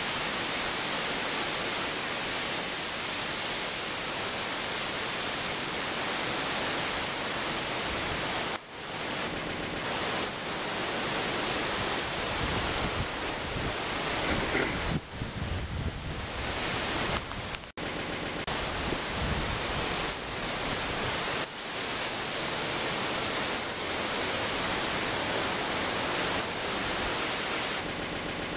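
Hurricane Irene's wind: a steady rushing noise of gusts through the tree canopy and buffeting the microphone, with two sudden short drop-outs where the footage is cut.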